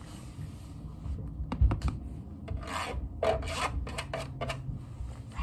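Rubbing and scratching close to the microphone in short, irregular strokes over a low handling rumble, with a loud bump about a second and a half in.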